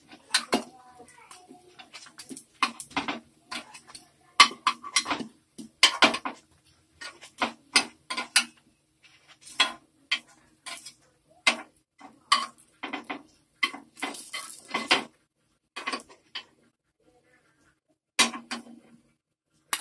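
Metal spoon clinking and scraping against a non-stick paniyaram pan and a metal bowl as cooked paniyaram are lifted out one by one: a run of sharp, uneven clicks and knocks with a short lull near the end.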